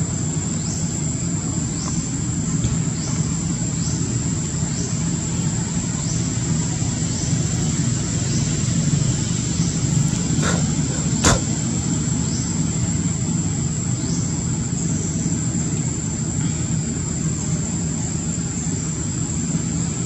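Steady low rumble of outdoor background noise, with a steady high whine above it and short rising chirps about once a second; a single sharp click about eleven seconds in.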